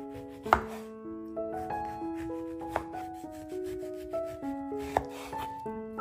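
Santoku knife slicing the peel off an orange and knocking down onto a wooden cutting board, three sharp knocks about two seconds apart, the first the loudest. Light piano-like background music plays under it.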